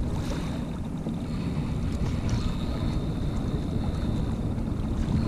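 Steady wind rumble on the microphone of a small open skiff on choppy water, with a faint high steady tone running underneath.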